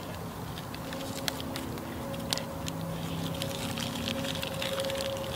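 Campfire crackling, with many irregular sharp snaps over a steady hiss, and a low steady drone of held tones underneath.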